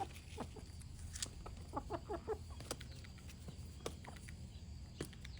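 Chickens clucking, with a quick run of short clucks about two seconds in and a few sharp clicks scattered through.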